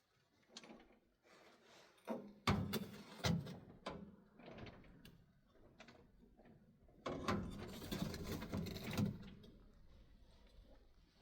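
Irregular knocks, clatter and scraping of objects being handled, with a busier stretch of rubbing and scraping about two-thirds of the way through.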